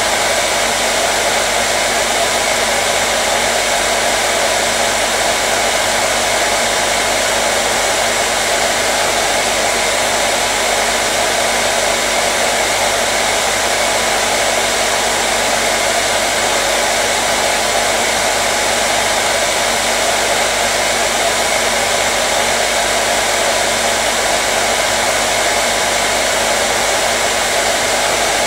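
Hair dryer running continuously at a steady setting: an even rushing of air with a faint motor hum underneath.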